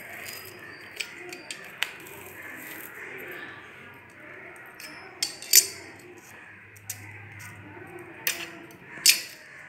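Utility knife blade scoring a thin transparent plastic sheet along a ruler: a few light clicks in the first two seconds, then short scraping strokes, the loudest about halfway through and twice near the end.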